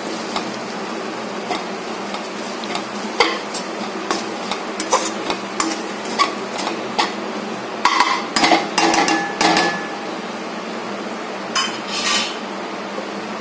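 Spatula scraping and knocking against a non-stick kadai as a thick sweet-corn and onion mixture is stirred, in scattered strokes that come thickest about eight to ten seconds in, over a steady background hum.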